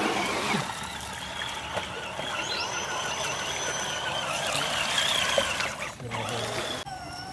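Electric motor and gearbox of a scale RC crawler truck whining as it drives through mud. The pitch wavers up and down with the throttle, and one higher whine rises to a steady tone. Mud and water slosh underneath.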